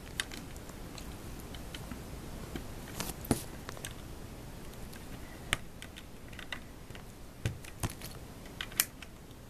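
Loose plastic Lego pieces clicking against each other as a hand picks through them, in scattered sharp clicks a second or two apart, the sharpest about three seconds in and near the end.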